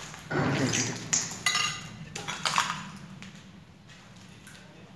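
Clattering and clinking of hard, metal-sounding objects: a louder jumbled burst in the first second, then a few sharp knocks, one with a short metallic ring about a second and a half in.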